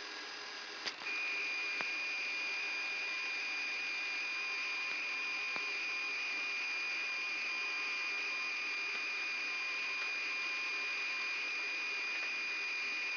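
A steady, single high-pitched electronic tone in the Yak-42D cockpit comes on with a click about a second in and holds without change. It is heard through the cockpit voice recorder's steady hiss.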